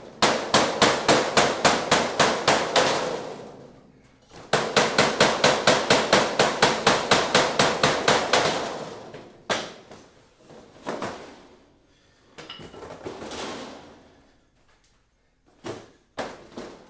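Mallet blows on the PVC panels of a reptile enclosure, knocking a wrongly fitted top panel back off. There are two fast runs of about five blows a second, one lasting about three seconds and one about four, then a few single knocks.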